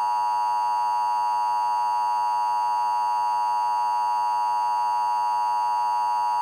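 Emergency Alert System attention signal: a loud, steady electronic two-tone alarm, strongest near 1 kHz, held without a break. It announces an emergency action notification.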